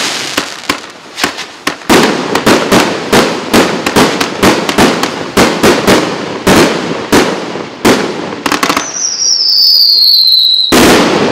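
A PC9290 «Professional» 578-shot firework cake (0.8", 1.0" and 1.2" shots) firing: a quick run of sharp bangs and crackling bursts, then a falling whistle, and a loud blast near the end.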